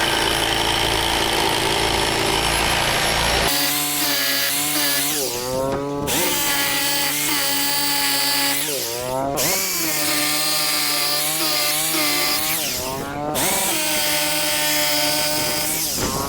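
An electric power tool running hard while rebar is being fitted to a concrete foundation, with a harsh grinding noise for the first few seconds. After that the motor's tone sags in pitch under load and recovers about every three to four seconds.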